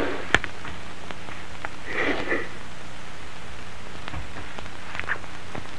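Quiet sobbing and sniffling, with one short sob about two seconds in and a few faint clicks, over a steady hiss and low hum from an old film soundtrack.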